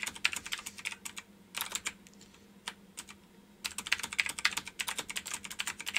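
Computer keyboard typing: fast runs of key clicks as numbers are keyed into spreadsheet cells, thinning to a few scattered clicks for a second or two in the middle before a second quick run.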